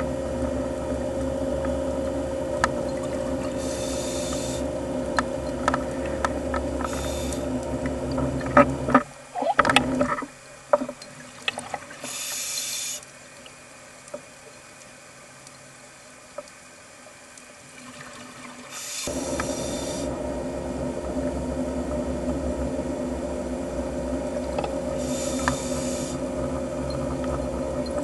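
Underwater recording: a steady low hum, with short hissing bursts of scuba exhaust bubbles every few seconds. About a third of the way in the hum drops out for roughly ten seconds, and a run of sharp clicks and pops comes in, then the hum returns.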